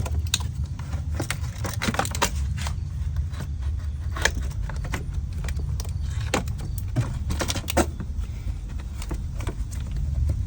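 Ratchet and metal tool clicks and clinks, irregular and sometimes in quick runs, as 10 mm bolts on a car's battery tray are worked loose, over a steady low rumble.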